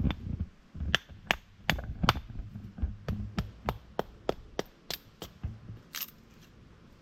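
Firewood being chopped: a quick run of sharp chopping strikes, about three a second, with duller thuds between them, stopping about six seconds in.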